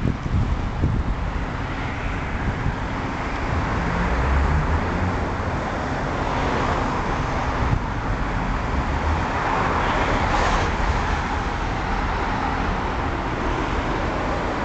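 Street traffic: a steady roadway noise with a deep rumble, and cars swelling past about six seconds in and again about ten seconds in.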